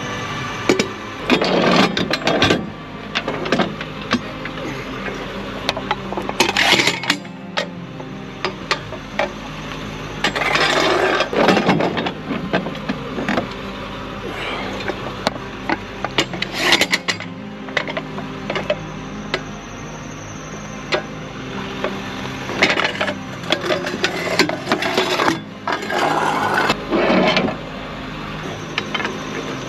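Metal clanks, scrapes and rattles of tow-truck gear being handled: equipment set against a tyre and metal bars lifted off a steel diamond-plate flatbed deck. The clatter comes in several loud spells over steady background music.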